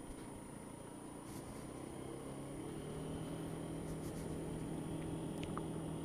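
Honda Dio scooter's engine running under way, with road and wind noise, getting gradually louder over the second half.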